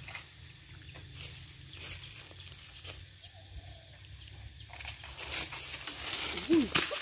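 Leaves and branches of a jackfruit tree rustling and knocking as a long wooden pole is worked up through the canopy, busier and louder in the last couple of seconds. Faint small bird chirps and a short low call come in near the end.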